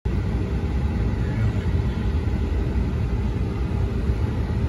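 Vehicle running with a steady low rumble as it drives slowly into floodwater.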